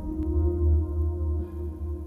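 Background music: a slow ambient pad of held tones over a low drone, easing off slightly near the end.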